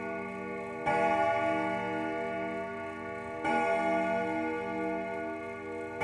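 Ringing bell-like chords struck about every two and a half seconds, each ringing on with a slow wavering until the next strike, like slow ambient background music.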